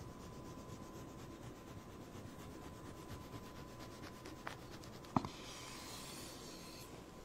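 Knife sawing a very thin slice from a soft loaf of bread, the blade rasping faintly through the crust and crumb. Two sharp clicks a little over four and five seconds in, with a brighter hiss after the second.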